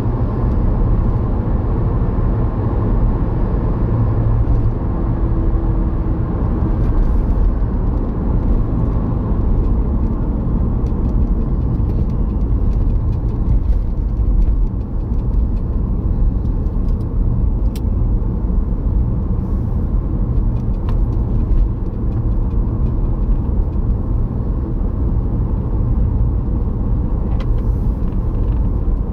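Car cabin road noise: the steady low rumble of tyres and engine while driving.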